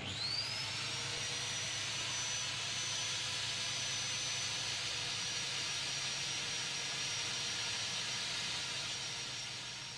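Turbocharger of a diesel-electric locomotive engine running: a high whine that climbs in the first half-second and then holds steady over a rushing hiss and a low hum, fading away near the end.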